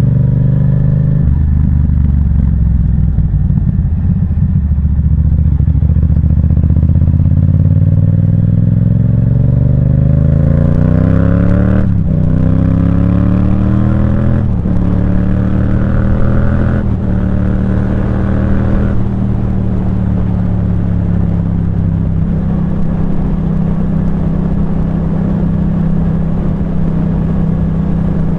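Yamaha MT-07 parallel-twin engine through a Firetong aftermarket exhaust, accelerating through the gears. The engine note climbs and drops at three shifts about two and a half seconds apart, near the middle, then holds a steady note while cruising.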